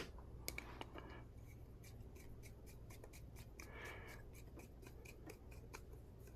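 Faint, even clicking, about five clicks a second, of a ratchet and socket driving in a carburetor mounting screw.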